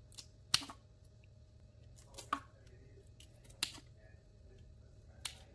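Kitchen scissors snipping through raw head-on shrimp, cutting off the pointed head spike, eyes and feelers: several short, sharp snips a second or so apart, the loudest about half a second in.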